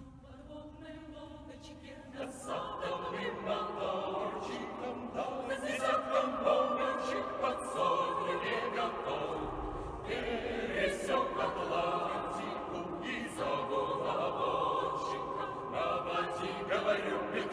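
Mixed choir of men's and women's voices singing a song in Russian, unaccompanied, in the echoing space of a large church. It starts soft and swells to full voice about two seconds in.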